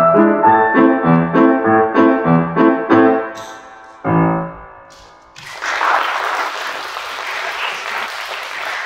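Grand piano played four hands, a repeating figure that slows and ends on a final chord about four seconds in, left to ring down. About a second later an audience starts applauding and keeps clapping steadily.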